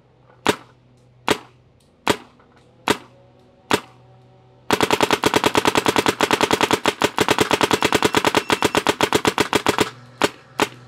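Planet Eclipse CS3 electronic paintball marker firing. Single shots come a little under a second apart, then nearly five seconds in a rapid ramping string of shots runs for about five seconds, followed by a couple more single shots.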